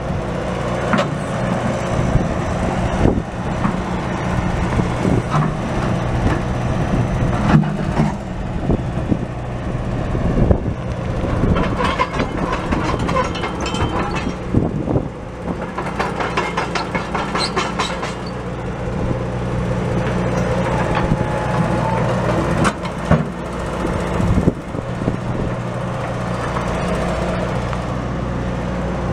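John Deere 590D excavator's four-cylinder turbo diesel running steadily while the boom, bucket and upper structure are worked, with frequent metal clanks and knocks. A stretch of rapid clatter comes in the middle.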